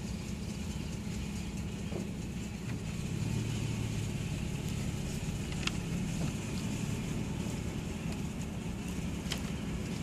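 Steady low engine hum over faint outdoor background noise, with a few faint ticks.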